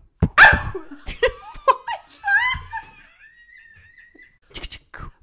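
Improvised vocal beat and mouth noises mixed with laughter: sharp pops at the start, squeaky gliding sounds, then a thin high whistle-like note held for about a second and a half, and a few clicks near the end.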